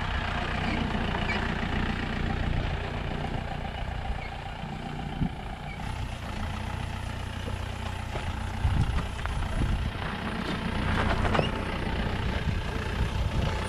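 Mahindra Bolero 4x4's diesel engine running at low speed as it crawls over a rough dirt and rock trail, with a few short knocks.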